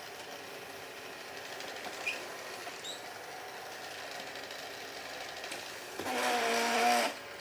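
Ecovacs Deebot DM82 robot vacuum running steadily while it drives about looking for its charging dock. About six seconds in, a louder pitched sound lasts about a second.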